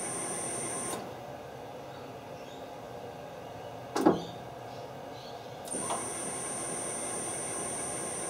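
High-pitched electrical whine of the VFD-driven lathe motor cuts out about a second in as the headstock cover is lifted, opening the safety interlock. The metal cover drops shut with a single sharp knock about four seconds in. After a lighter clunk the whine comes back near six seconds.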